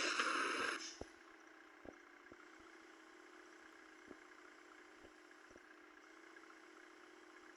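A vehicle engine idling with a steady hum and a few faint clicks, after a loud burst of noise that ends about a second in.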